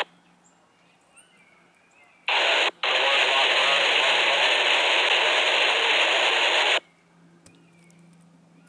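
Railroad scanner radio opening up with a burst of static hiss about two seconds in, cutting out for an instant, then running on for about four seconds before stopping abruptly.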